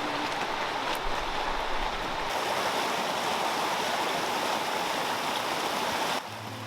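Steady rushing of a creek flowing over rocks. It cuts off abruptly near the end and gives way to music.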